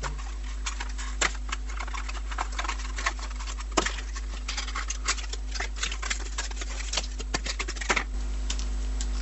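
Webcam packaging being opened and handled: a run of irregular clicks and crinkles, over a steady low electrical hum.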